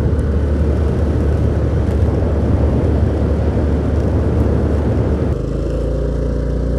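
Honda Activa 3G scooter's 110 cc single-cylinder engine running at a steady cruise, with heavy wind rumble on the microphone. About five seconds in, the wind noise drops and the engine's steady hum comes through clearly.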